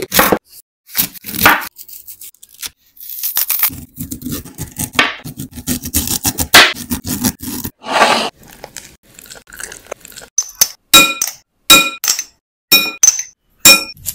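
Close-miked kitchen sounds: a chef's knife chopping on a board with sharp knocks, then scraping and crunching as boiled potatoes are handled in a bowl, and near the end a quick run of short, ringing clinks of glass as spice jars meet a glass mixing bowl.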